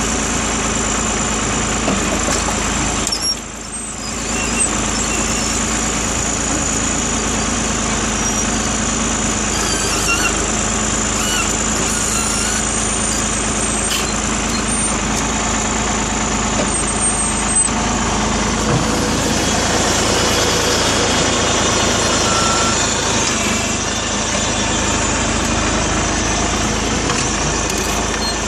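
Engine of a tractor-mounted backhoe running steadily while the hydraulic arm digs a trench in dry, stony soil, briefly dropping in level about three seconds in.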